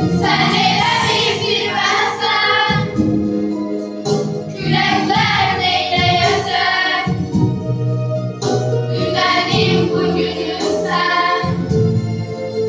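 A children's choir singing a song in phrases, with instrumental accompaniment that holds steady low notes underneath.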